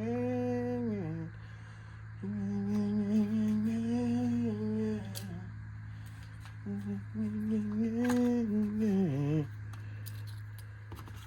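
A man humming a tune in three drawn-out phrases, with a few light clicks in between.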